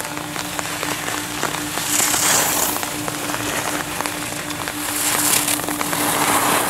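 Rain pattering steadily, with the hiss of ski edges carving wet snow swelling twice as skiers turn past. A steady low hum runs underneath.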